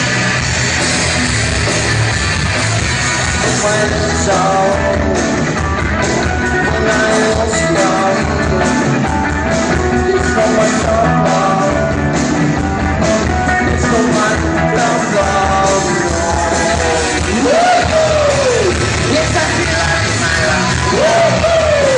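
A rock band playing live: electric guitars and drums, with a lead singer. A sliding pitch swoops about 17 seconds in and again near the end.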